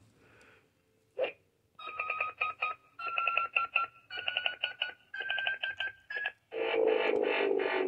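Power Rangers Cosmic Fury toy morpher's electronic sound effects: a click, then runs of rapid pulsing beeps that step up in pitch each time, followed near the end by a louder, fuller electronic sound.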